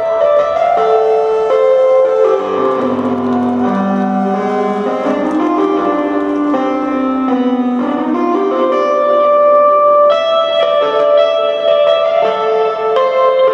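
A progressive metal band plays live in a quiet, drumless passage: a keyboard with a piano sound and a guitar play slow melodic lines and sustained chords.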